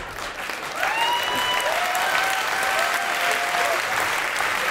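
Theatre audience applauding after a punchline, the clapping swelling up about a second in, with a few drawn-out cheers heard over it.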